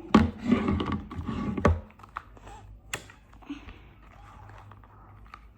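Hands handling a plastic toy mask and adjusting its strap: a run of clicks and rustles, busiest in the first two seconds, then fainter scattered ticks.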